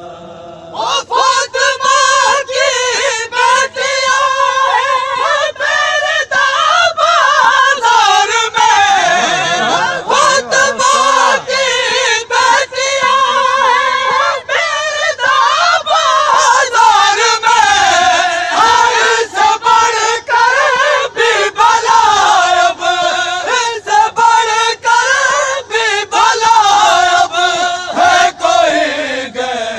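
A group of men chanting an Urdu devotional refrain (noha) together, very loud, starting about a second in.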